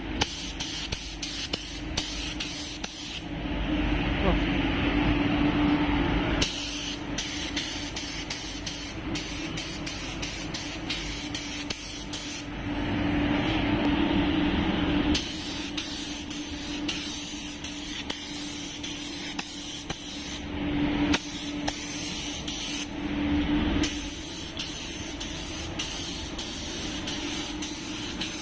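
Gravity-feed paint spray gun hissing as pearl white paint is sprayed, in passes of a few seconds: two longer ones, then two short bursts. Under it, the spray booth's extraction runs with a steady drone.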